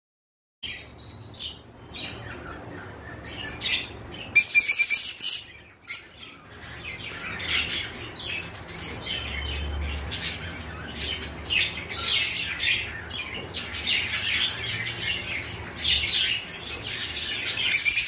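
Peach-faced lovebirds chirping continuously in quick high notes, with one louder shrill call about four and a half seconds in.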